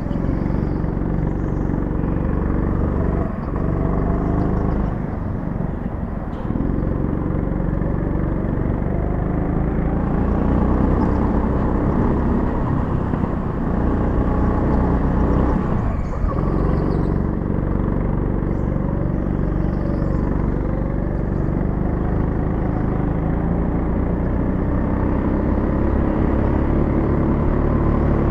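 Go-kart motor running at speed, heard from the driver's seat, its note rising and falling as the kart is driven through the corners, with a few brief dips.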